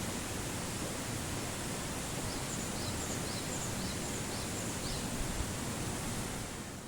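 Steady rushing outdoor noise. A series of about six short high chirps comes a couple of seconds in, and the whole sound fades out near the end.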